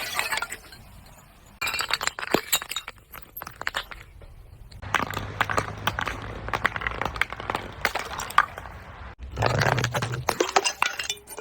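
Broken glass being crushed, the shards crunching and clinking in dense runs of sharp cracks. It comes in three stretches with short lulls between them.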